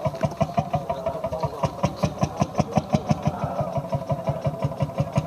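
Old Landini tractor engine running slowly with an even beat of about six to seven firing pulses a second.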